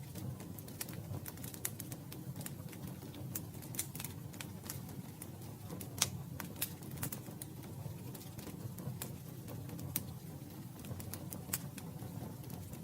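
Campfire crackling: irregular sharp pops and snaps over a steady low flame rumble, with a louder pop about six seconds in.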